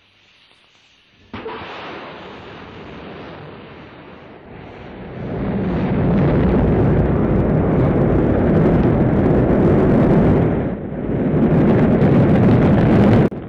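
Rocket launch roar. The engines ignite suddenly about a second in, giving a deep, noisy rumble that grows much louder partway through, dips briefly shortly before the end, then cuts off abruptly.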